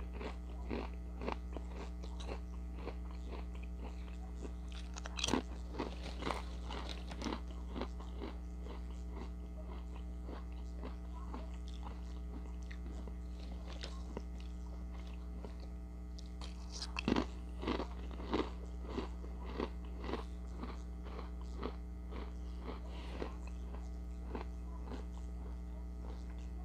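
Ritz Toasted Chips being bitten and chewed close to the microphone: sharp crisp crunches, loudest about five seconds in and again around seventeen seconds, over a steady low hum.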